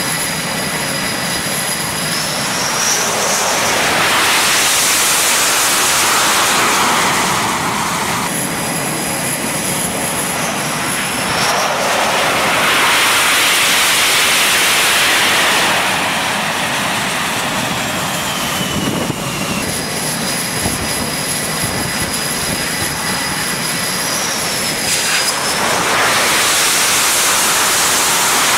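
F/A-18 fighter jet engines running on a carrier flight deck: a continuous loud roar with a high steady whine. The roar swells three times, each swell lasting a few seconds.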